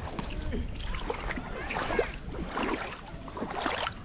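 Shallow river water splashing and sloshing in irregular bursts, as someone wades through it.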